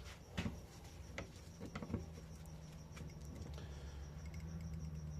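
Scattered light metallic clicks and taps as a prying tool works at a rusted ATV brake caliper's pistons held in a vise, over a low steady hum. The pistons move but spring back out, which the mechanic puts down to fluid still trapped in the caliper.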